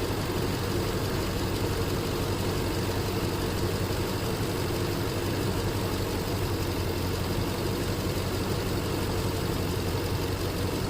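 Nissan Armada 5.6-litre V8 idling steadily, with a new ignition coil on cylinder 8 that replaces the failed coil that was drawing no current and causing the cylinder 8 misfire.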